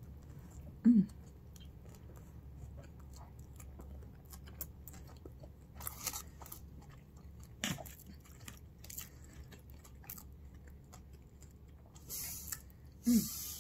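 A person chewing a mouthful of cheeseburger: soft wet mouth clicks and smacks, with a short hum about a second in and another near the end.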